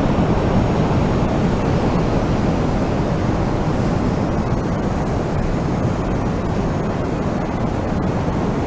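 Wind blowing steadily, a dense low rushing noise that eases slightly toward the end.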